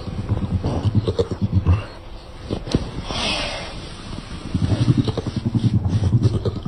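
Dog making a deep, rattling, growl-like rumble in rapid pulses, a strange monster-like noise. It breaks off about two seconds in, with a short hiss, then starts again for the last couple of seconds.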